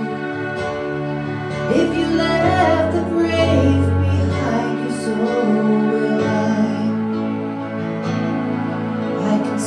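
Slow, tender worship music on a Roland RD-700 digital stage piano: soft held chords, with the bass note shifting twice.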